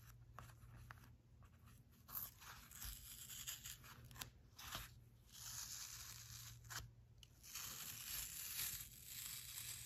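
Adhesive silk-screen stencil being peeled off a cotton flour sack towel: faint crackling, tearing sounds in several short bouts, with a longer pull near the end.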